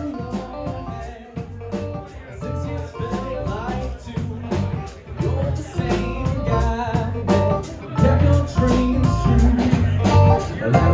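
A live band playing a song, with drum kit, bass, guitar and keyboards; the music grows louder and fuller about three seconds before the end.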